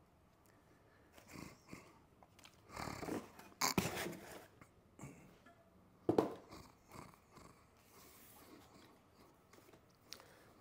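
Quiet handling and movement noises of a person shifting about at a table: rustling and a few knocks, the loudest about four and six seconds in.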